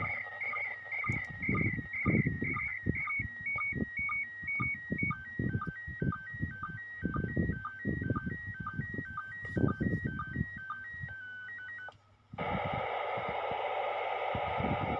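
Slow-scan television (SSTV) radio signal in PD120 mode: a warbling run of tones that steps between higher and lower pitches several times a second, over hiss and irregular low bursts of noise. About 12 seconds in it cuts out briefly and gives way to a steady rush of radio static, as the transmission ends.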